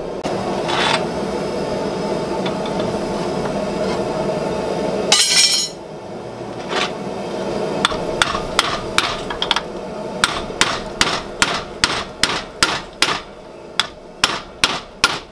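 Hammer blows on a steel drift being driven through a hole in red-hot bar stock clamped in a bench vise. The blows start about seven seconds in and settle into a steady two a second. Before them the forge runs steadily for about five seconds while the piece is reheated, ending in a short loud burst of noise.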